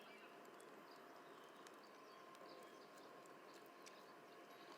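Near silence: faint outdoor background with a few faint, short high chirps and a faint steady tone.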